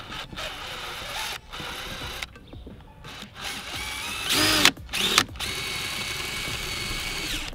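Cordless brushless drill with a 9/64-inch bit drilling a small pilot hole at the car's wheel arch: the motor spins up and down briefly twice, then runs steadily for about two seconds and stops near the end.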